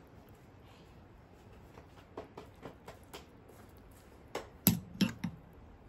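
A metal spoon clicking and tapping as chimichurri is spooned out and onto the meat: a few light taps, then four sharper clicks near the end.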